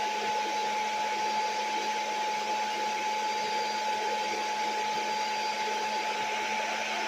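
Small household electric appliance motor running steadily, a constant whine over a rushing of air.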